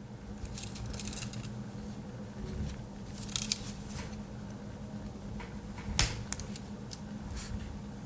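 Small metal clicks of a Victorinox Angler Swiss Army knife's can opener and tools being handled and worked, a cluster around the middle and the sharpest click about six seconds in, over a low steady hum.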